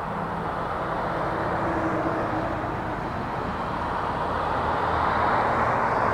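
Airbus A340-600's four Rolls-Royce Trent 500 turbofans running at low taxi thrust as the airliner turns onto the runway: a steady jet rush that grows gradually louder toward the end.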